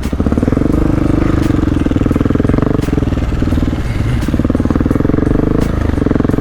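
Supermoto motorcycle engine opening up at the start and then running steadily under throttle, with brief dips in the engine note around the middle.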